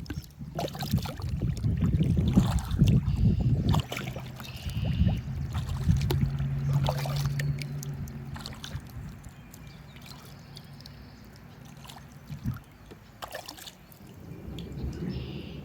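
Kayak paddling: paddle blades dipping and splashing with water dripping and trickling off them. A low rumble is loudest through the first half and fades away after about nine seconds.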